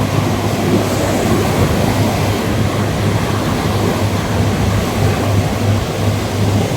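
Ocean waves washing steadily onto a beach, with a constant low rumble underneath.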